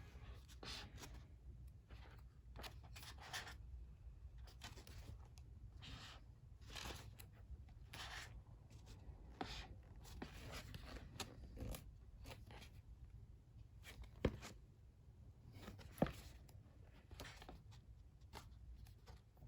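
Pages of a photobook being turned and handled: faint, repeated paper rustles, with two sharper clicks later on.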